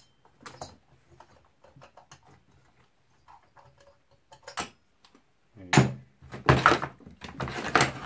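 Short clicks and knocks of chainsaw engine parts and tools being handled on a workbench, busiest and loudest in the last couple of seconds.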